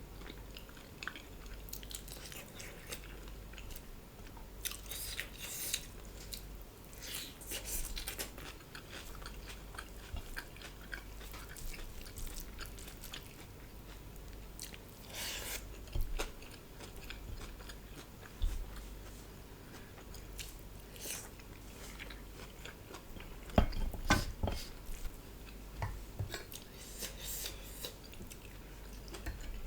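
Close-miked chewing and mouth sounds of someone eating dal bhat with chicken curry, with scattered short clicks and smacks. A louder cluster of sounds comes about three-quarters of the way through.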